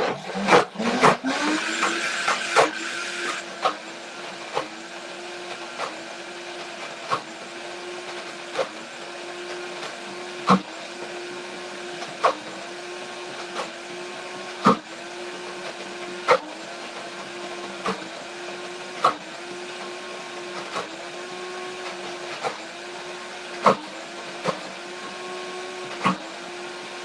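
Optimum G2.6 high-speed blender starting up on a 30-second manual run and blending a thick, creamy mixture, a second round to get it really smooth. It is loudest in the first few seconds, then runs steadily with a sharp tick and a brief dip in pitch about every second and a half.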